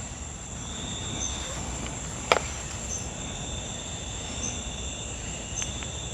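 Crickets chirring steadily in a high pitch, with a single sharp click about two seconds in.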